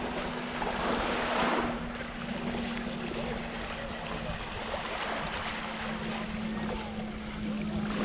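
Small waves lapping and washing on a sandy shore at the water's edge, with wind noise on the microphone; the wash swells about a second in and again at the end.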